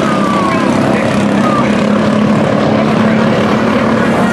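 Mini truck race engines running at speed on an oval track, a loud steady drone with short shifts in pitch as the trucks go by.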